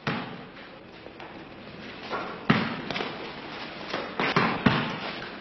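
A series of irregular sharp thuds and knocks, five or so, with the loudest about halfway through.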